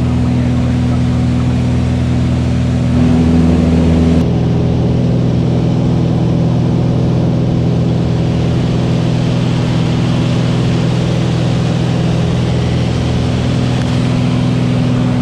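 Cessna 182's piston engine and propeller running steadily in flight, heard inside the cabin. The sound grows a little louder about three seconds in, then its tone shifts abruptly about four seconds in and holds steady after that.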